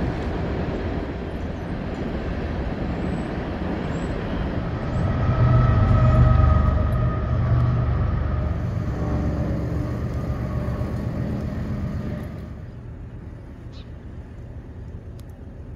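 A vehicle passing along the street with a low rumble. It grows loudest about six seconds in and fades away by about twelve seconds.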